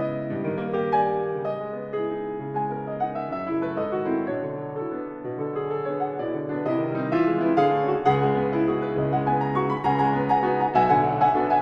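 Solo grand piano playing a toccata: many notes struck in quick succession in both low and middle registers, growing louder from about eight seconds in.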